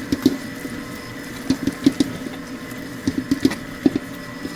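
Electric mixer running at low speed through a thick cookie dough: a steady motor hum with irregular knocks and clicks all through.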